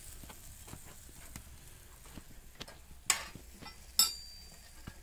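Chopped onion frying in bacon fat in a camp cauldron over a fire, a faint sizzle with small crackles. Two sharp metallic clinks about three and four seconds in, the second ringing briefly.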